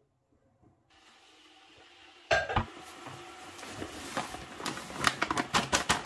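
A sharp knock about two seconds in, then a paper bag of plain flour being handled and tipped into a plastic mixing bowl, its paper crinkling in a run of sharp crackles near the end.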